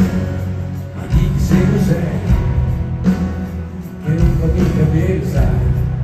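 Live rock band with a male lead singer singing, heard through a stadium sound system from among the audience, with a heavy, booming bass.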